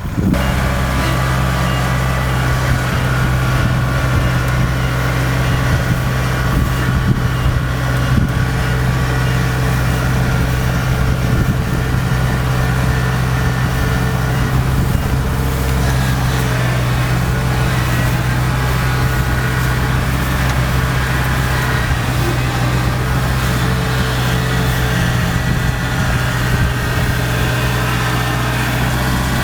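Kubota DC70 combine harvester's diesel engine running steadily at a constant speed.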